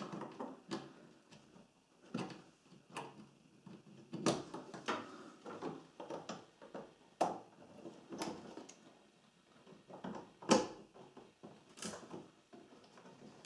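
Irregular light plastic clicks and knocks as wiring connectors and clips are pushed home on a washing machine's electronic control board, with one sharper knock about three quarters of the way through. The connectors pushing fully in are the sign that the board is seated correctly.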